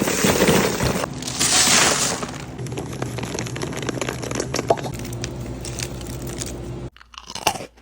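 Freeze-dried candy crackling and crunching, with hissing surges in the first two seconds and scattered sharp cracks. A steady low hum runs under it and cuts off about seven seconds in, followed by a few sharp crunches.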